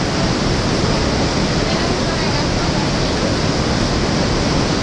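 Water rushing and churning in an old canal lock chamber: a loud, steady, even rush.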